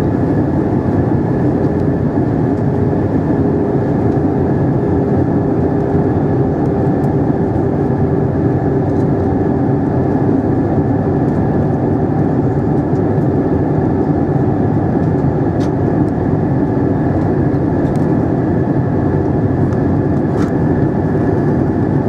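Steady cabin noise of an Airbus A320-232 in descent, heard at a window seat beside the engine: the even rush of airflow and the drone of its IAE V2500 turbofans, with a steady low hum and a faint high whine.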